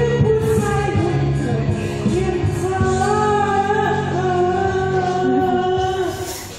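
A pop song sung live into handheld microphones over backing music, with long held notes. The song stops near the end.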